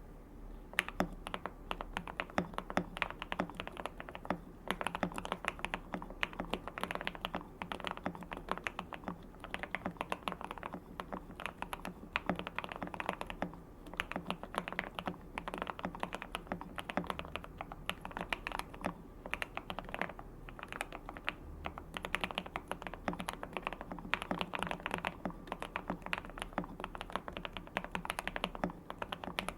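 Steady fast typing on a QK65 custom mechanical keyboard with a POM plate and lubed Banana Split switches, giving a continuous run of keystrokes with a few short pauses. The typing sound is marbly.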